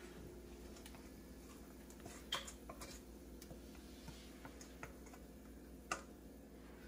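Onions frying in oil in a cooking pot: faint, scattered crackles and ticks, with a couple of sharper clicks about two seconds in and near the end, over a low steady hum.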